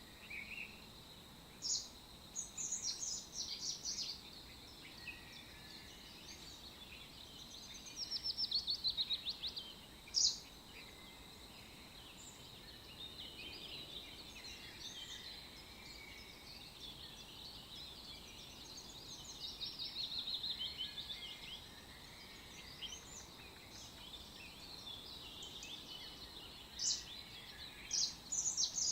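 Songbirds chirping and singing in short phrases, some as rapid trills, scattered throughout over a faint steady hiss.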